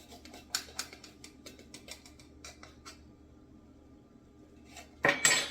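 Light clicks and taps of a measuring spoon against a container while scooping baking soda, then a short, louder rustling noise near the end.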